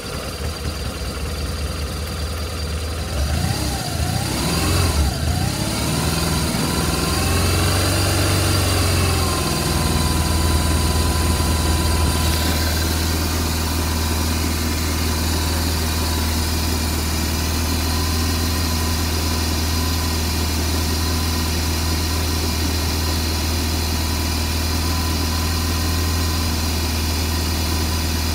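A 2007 BMW R1200RT's boxer twin running in second gear. The revs rise and fall for the first ten seconds or so, then hold steady at around 3,000 rpm.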